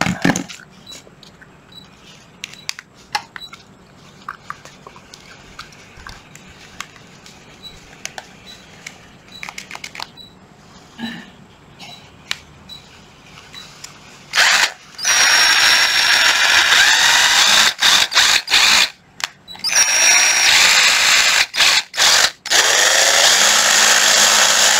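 Ryobi cordless driver, tested free-running. The first half holds only scattered clicks. Then, about halfway, the motor runs loud in three bursts with short stops between, its pitch rising and falling as it speeds up and slows down while forward/reverse and the fast/slow setting are tried. Direction change and speed control both work.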